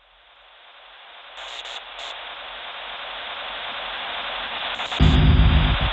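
A static-like hiss fading in and growing steadily louder, with a few short high crackles. About five seconds in, a loud low rumbling drone cuts in abruptly.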